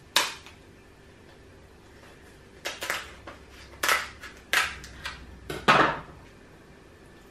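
Kitchen scissors cutting through the shell of a boiled lobster tail: a series of six or seven sharp, crunchy snips and cracks, the loudest just after the start and near six seconds in.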